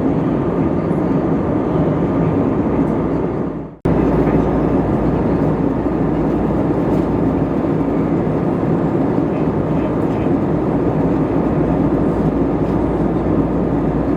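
Steady cabin noise inside an Airbus A320neo airliner in flight: engine and airflow noise. About four seconds in it fades out quickly and cuts straight back in.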